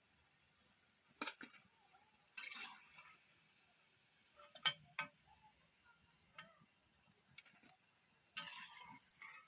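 Cooking utensils being handled: a few sharp clinks and knocks and two short scraping rasps, over a faint steady hiss.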